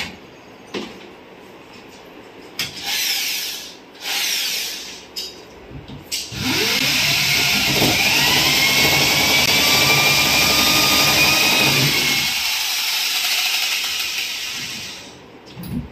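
Corded electric hand drill boring into a wooden wall panel. Two short bursts come about three and four seconds in. About six seconds in the motor winds up with a rising whine, runs steadily for about six seconds while drilling the hole, then tails off near the end.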